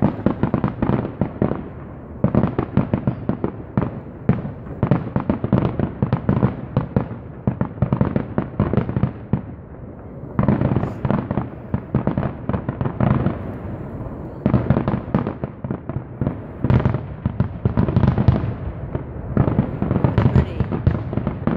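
Fireworks finale barrage: aerial shells bursting in rapid succession, many sharp reports a second, with a few brief lulls between volleys.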